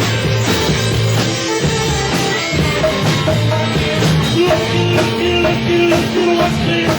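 A rock band playing live, full band with drums. About halfway through, a short note figure starts repeating over and over above the band.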